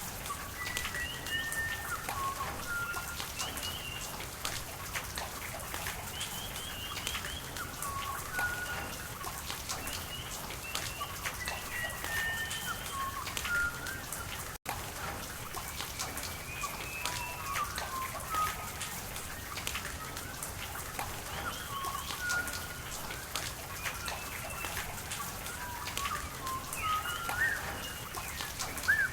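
Steady rain with scattered drips and running water, with birds calling in short, gliding whistled notes throughout. The sound cuts out for an instant about halfway through.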